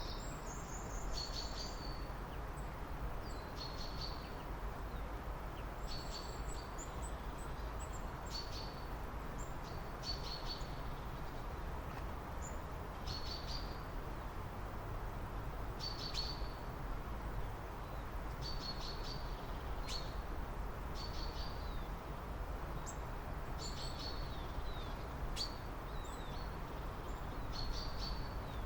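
Small birds calling, short high chirps repeated every second or two, over a steady low background rumble.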